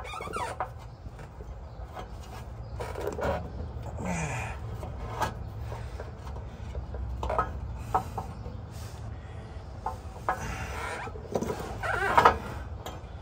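Scattered light metal knocks and scrapes as a truck's torsion-bar key is worked into the frame crossmember by hand, over a steady low hum.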